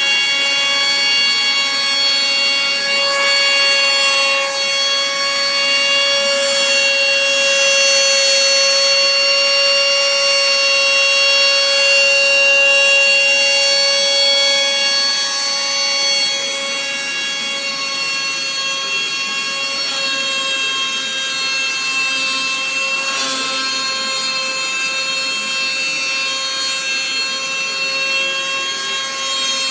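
Robot-held high-speed deburring spindle running with a steady high whine, its rotary cutter working along the edge of a panel. The whine drops slightly in level about halfway through.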